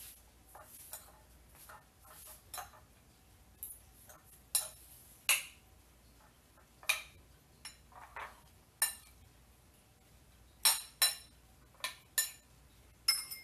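Metal spoon and fork tossing leafy greens in a ceramic plate: irregular clinks and light scrapes of cutlery against the plate, the loudest ones ringing sharply.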